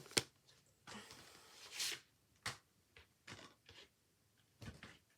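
Handling of a Blu-ray case and its cardboard slipcover: a sharp click, then a sliding rasp lasting about a second, followed by several light taps and knocks of the packaging.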